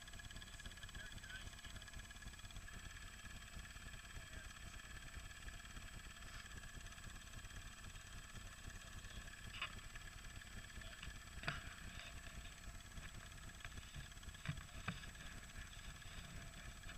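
ATV engines running faintly, a low steady rumble, with a few sharp clicks in the second half.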